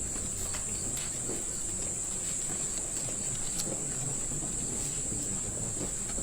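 Insects chirping as a steady high-pitched drone over a low background rumble, with a few faint clicks.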